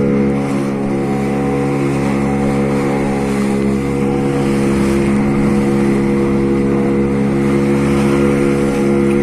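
An engine running steadily at a constant speed, an even hum with no change in pitch.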